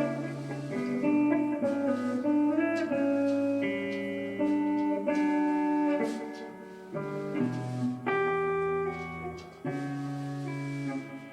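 Solo guitar fingerpicking a slow classical-style instrumental, single notes and broken chords ringing over one another.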